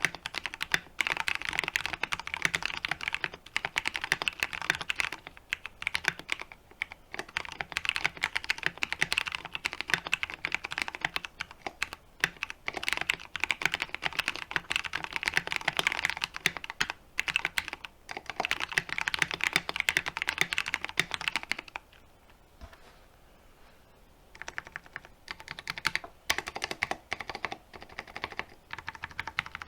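Continuous fast typing on a 60% mechanical keyboard with Super Lube–lubricated Cherry MX Brown tactile switches, in a weighted aluminium case with PBT doubleshot keycaps: a dense run of keystrokes. It stops for about three seconds some two-thirds of the way through, then resumes.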